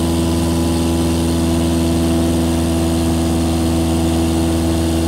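Cessna 172SP's four-cylinder Lycoming engine and propeller running at steady power, heard from inside the cabin as a constant, even drone.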